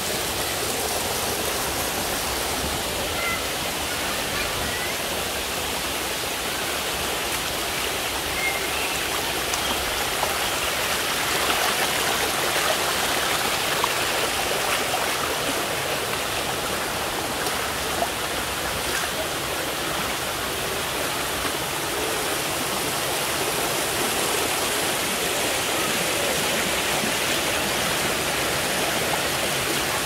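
Shallow water rushing and splashing steadily over the rock ledges of a terraced cascading waterfall.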